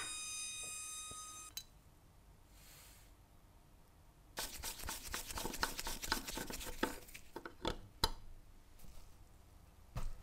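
Gas torch flame hissing for about a second and a half, then cutting off with a click. After a quiet gap, a screwdriver grinds and clicks metal on metal for about three seconds as it turns a fitting on an old, corroded brass toy-locomotive boiler, followed by a couple of single clicks.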